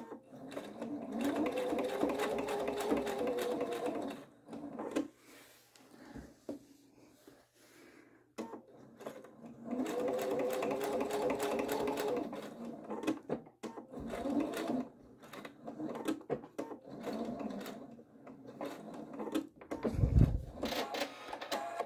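Electric sewing machine stitching a seam in bursts: two steady runs of about four seconds each, then several shorter runs with pauses between them as the fabric is turned and repositioned. A low thump sounds near the end.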